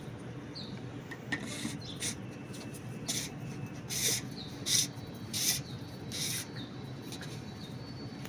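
A new fuel water separator filter (Racor R90-type element with its clear bowl) being turned by hand: about six short rasping rubs as the parts are twisted together, over a steady low background hum.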